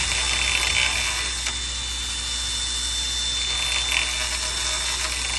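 Cordless drill running steadily with its bit pressed against the end of an aluminium rail, a continuous whirring with a thin high whine over it.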